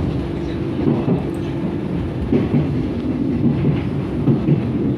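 Arriva regional passenger train running on the track, heard from inside the carriage: a steady low rumble with a held hum and some irregular clatter.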